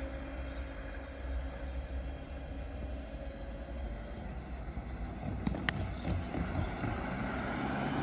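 Level-crossing half-barrier drive humming steadily as the booms rise, stopping about two and a half seconds in, with birds chirping. Then a car approaches and drives over the crossing, its tyres clacking on the rails about six seconds in.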